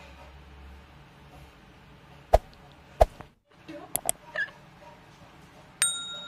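Subscribe-button overlay sound effects: a pair of quick mouse clicks about four seconds in, then a bright bell ding near the end that rings on and fades. Two single knocks come earlier, over faint steady room hum.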